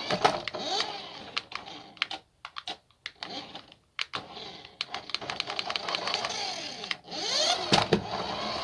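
Small electric motor of a toy RC SUV whirring, its pitch rising and falling in short bursts as it speeds up and slows down, mixed with many sharp clicks and knocks. It goes nearly quiet apart from scattered clicks for a couple of seconds in the first half.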